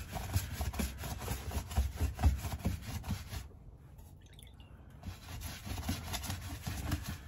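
Paintbrush scrubbing a wet wax and white-spirit mixture into garment fabric: a run of short rubbing strokes, which stop for a moment about halfway through and then resume.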